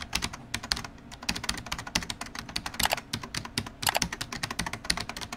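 Computer keyboard typing: a quick, irregular stream of key clicks, many a second.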